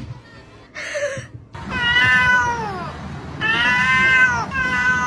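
A cat meowing: three long, drawn-out meows, each falling in pitch at the end, after a short noisy sound about a second in.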